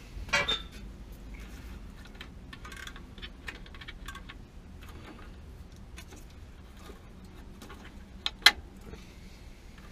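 Small clicks and rattles of hands handling a gas water heater's control valve and its sensor wiring, with a sharp double click, the loudest sound, a little past eight seconds in.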